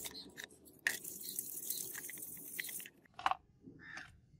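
Wire brush scrubbing a rusty steel cleaver blade, a scratchy back-and-forth rasp with a sharp click about a second in. The scrubbing stops about three seconds in, followed by a couple of light handling knocks.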